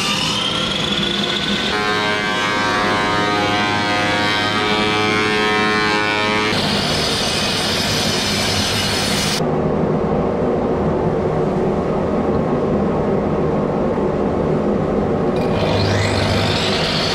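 Power saws cutting wood: a table saw running through a wooden panel with a whining blade, then a Makita miter saw's motor winding up with a rising whine near the end.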